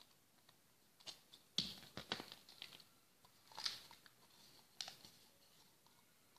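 Faint clicks and crinkles of a plastic candy tub being handled while gummy sweets are picked out of it, in a few short clusters.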